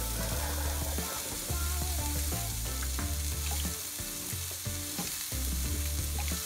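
Chicken strips sizzling steadily in a hot grill pan.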